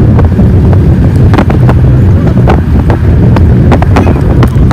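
A vehicle's engine rumbling steadily while riding, with wind buffeting the microphone and frequent short knocks and rattles.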